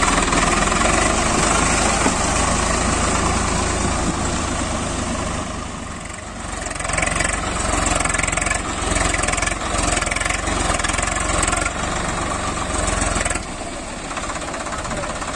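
Swaraj 744 FE tractor's three-cylinder diesel engine running hard. From about six seconds in it revs up and down in repeated surges, roughly once a second, then settles to a lower, steadier run near the end.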